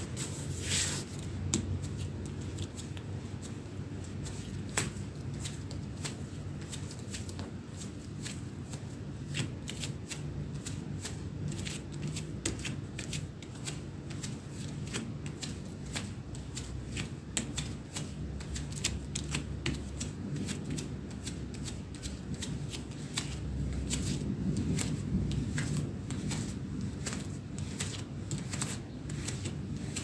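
Bare feet padding on a parquet floor in soft, irregular footsteps, about two a second, with the rustle of denim jeans.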